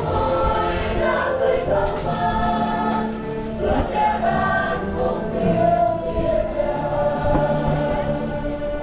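Church choir singing a hymn during Mass, several voices holding sustained notes.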